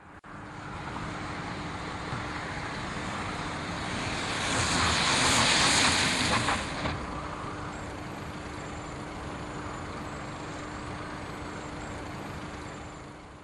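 A vehicle on the road: steady tyre and road noise with a faint constant hum. About halfway through, a louder hiss swells up, then cuts off suddenly.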